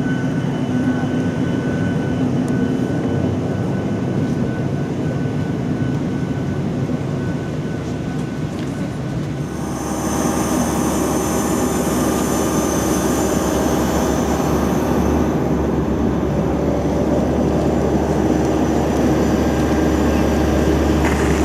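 Jet engine noise of a Boeing 737-800, heard from inside the passenger cabin, running steadily. About ten seconds in, the sound changes suddenly: a high whine comes in and it grows slightly louder.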